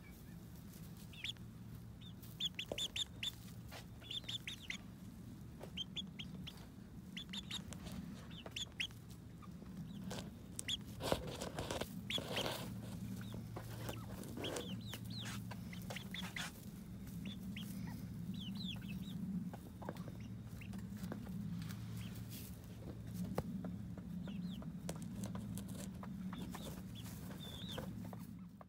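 Chickens clucking: many short, high calls scattered throughout, busiest around the middle, over a steady low hum. The sound cuts off suddenly at the end.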